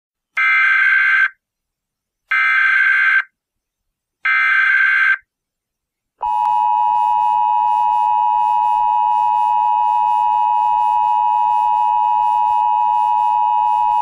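Emergency Alert System tones: three short bursts of the SAME data header about two seconds apart, then the steady two-tone attention signal held for about eight seconds.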